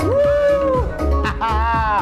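Loud music with a heavy, repeating bass beat and a high melody line that slides up and down in pitch.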